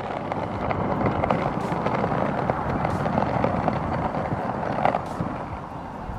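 Wheels rolling over rough tarmac: a steady gritty rumble full of small crackles that starts suddenly and eases slightly near the end.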